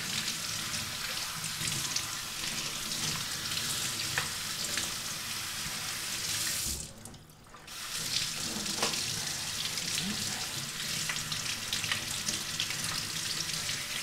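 Tap water running steadily over the plastic brew group of a Philips LatteGo coffee machine held under the stream in a stainless steel sink, the splashing briefly going quieter about halfway through.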